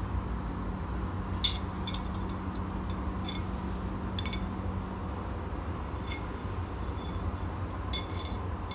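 Metal fork and spoon clinking and scraping against a plate as a child cuts and picks at fried chicken: a dozen or so short ringing clinks, irregular, with a small cluster near the end. Under them runs a steady low background rumble.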